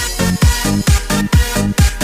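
Electronic dance music with no vocals: a steady four-on-the-floor kick drum at a little over two beats a second, with a bass line sounding between the kicks.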